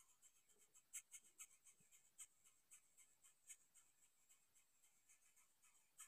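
Near silence, with faint, irregular high ticks and scratches a few times a second.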